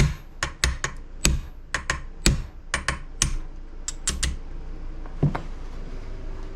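Light hammer taps on a pin punch, drifting a pin out of a Harrington & Richardson Topper 48 shotgun's frame: about fifteen quick, uneven metal taps over four seconds, then one more about five seconds in.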